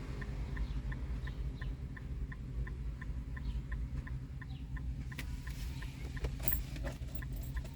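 Rapid, even ticking from the car, about four ticks a second, over a low steady hum.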